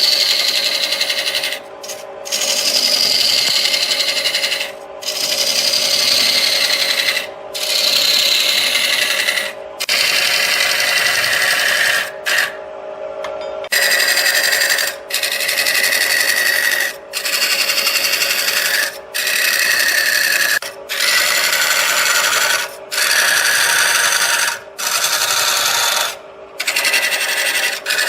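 Wood lathe running with a steady hum while a turning tool cuts the spinning wood in repeated strokes of about two seconds each, with short breaks between them. The scraping tone of each cut slides in pitch as the stroke goes on.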